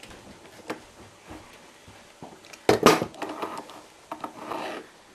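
Small metal clicks and scrapes of a bent paperclip and wire pick working in the keyhole of an East German (DDR) Model 3 handcuff, trying to release its double lock. A sharper clatter of metal comes a little under three seconds in, followed by softer scraping.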